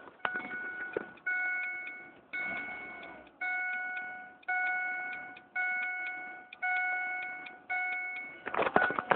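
Car dashboard warning chime dinging evenly, about once a second, eight times, each ding fading before the next. A quick clatter of knocks near the end.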